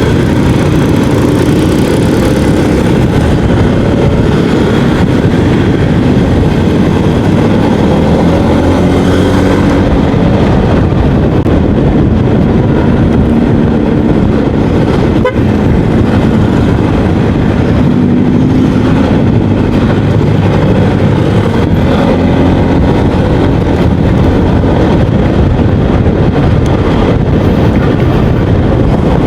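Yamaha XMAX 250 scooter's single-cylinder engine running on the move, its note slowly rising and falling with the throttle, over loud steady road noise.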